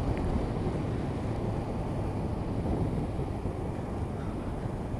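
Steady wind rush and engine noise from a Honda CB500X motorcycle being ridden, heard on an action camera's microphone.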